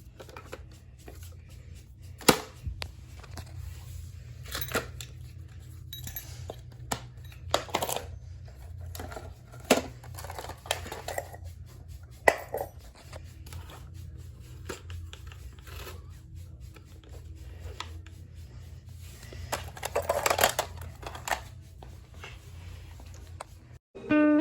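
Sporadic sharp clicks and knocks of small hard objects being handled, with a longer stretch of rustling near the end, over a steady low hum.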